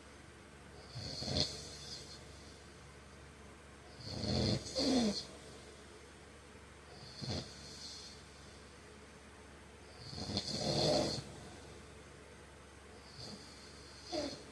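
A man snoring in his sleep, with a snoring breath about every three seconds. The longest and loudest snores come about five and eleven seconds in.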